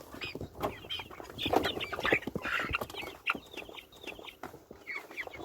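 A flock of young chickens in a pen clucking and cheeping, with many short overlapping calls and scattered scratching and shuffling clicks.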